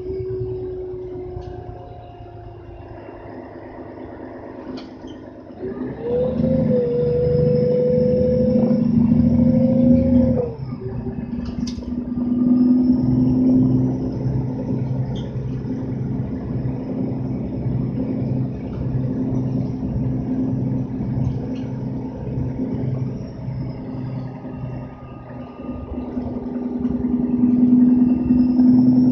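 Mercedes-Benz O530 Citaro bus's OM457 straight-six diesel and ZF EcoMat automatic gearbox heard from inside the passenger cabin while riding: the engine note falls away at first and stays low for a few seconds, then rises sharply as the bus pulls away about six seconds in, drops suddenly near ten seconds as the gearbox shifts up, and runs on steadily, easing off briefly and building again near the end.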